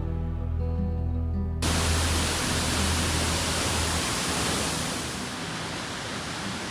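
Background music, then about a second and a half in, a steady rush of flowing water cuts in abruptly and becomes the loudest sound, with the music's bass dropping away partway through.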